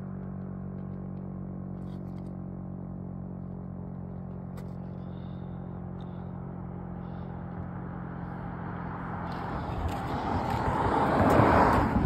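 A steady low drone made of several even tones. From about nine seconds in, a rough rustling noise builds and peaks near the end, as the recording phone is moved about.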